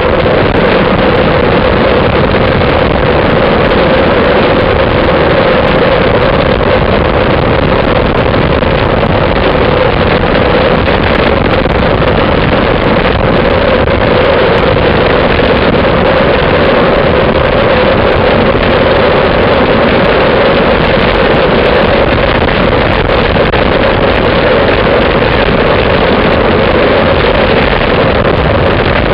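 Wind rushing over the microphone of a camera riding on a moving road bike: a loud, steady rush with a constant mid-pitched hum running through it.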